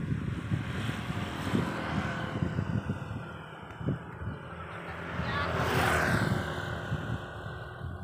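Wind buffeting the microphone in uneven gusts, with a road vehicle passing by that swells up, is loudest about six seconds in, and fades away.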